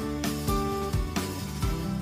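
Instrumental background music with a steady beat and sustained pitched notes.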